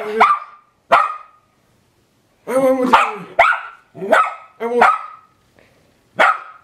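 Schnauzer barking at a man in play, a string of about seven sharp barks roughly one a second, with one longer, drawn-out bark about two and a half seconds in.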